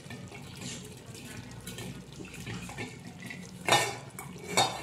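Wet, watery sounds from a steel cooking pot as boiled chana dal is added to the half-cooked pumpkin, with two sharp clanks of a utensil against the pot near the end.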